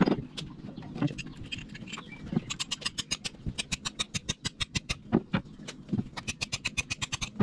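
A small hand tool scraping and picking at the eye of a steel axe head, clearing out remnants of the old wooden handle: quick repeated scraping strokes, about six a second, from a couple of seconds in until near the end, with a few duller knocks from handling the head.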